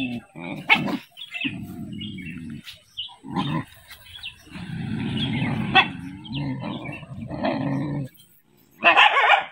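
Dogs growling in long low rumbles, with gaps between them and a brief louder, higher-pitched outburst near the end, as they face their own reflections in a mirror.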